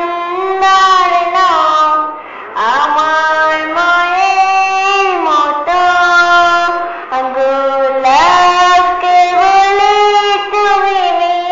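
High female solo voice singing a Bengali Islamic gojol, unaccompanied, with long held notes that glide and bend between pitches.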